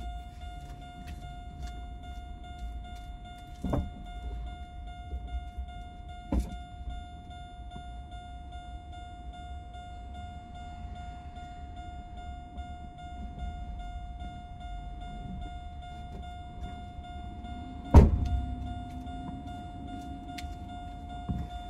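Car sounds: a low steady rumble under a steady high tone, knocks about four and six seconds in, and a loud thunk about eighteen seconds in, after which a lower hum rises and then holds.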